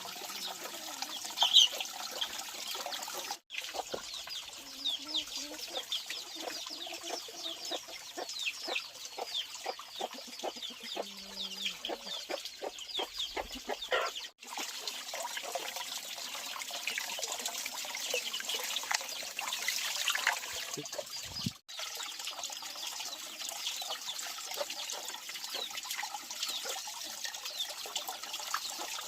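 Chickens clucking, with many short high chirps and ticks over a steady outdoor hiss; the sound breaks off briefly three times.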